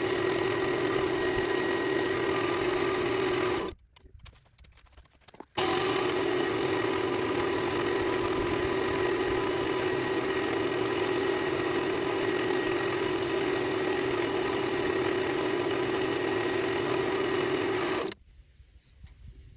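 Wood lathe motor running steadily with an even hum, spinning a pen blank during turning or finishing. It stops about four seconds in, starts again a couple of seconds later and stops near the end.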